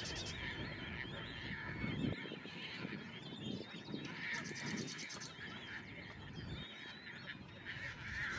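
Wild birds calling and singing around a marsh: wavering warbled phrases with honk-like calls, and a fast buzzy trill lasting under a second around four seconds in.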